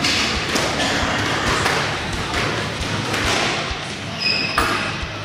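Footsteps and scattered thuds on a squash court floor in a hard-walled court, with a short squeak about four seconds in.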